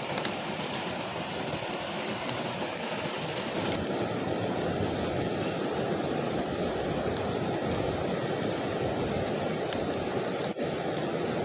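Steady rushing of a fast river, with scattered faint crackles from a small wood fire.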